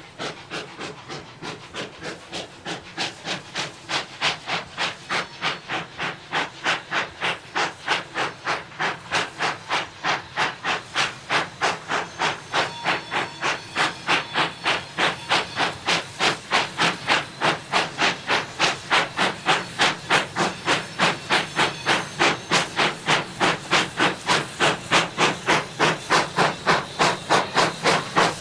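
Saddle-tank steam locomotive hauling a train of hopper wagons: its exhaust chuffs in a steady rhythm of sharp beats, about three a second, growing louder as it approaches.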